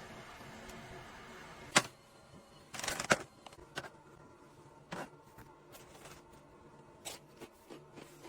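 Small hard objects being handled, clicking and knocking: one sharp click about two seconds in, a quick cluster of knocks a second later, then scattered single clicks.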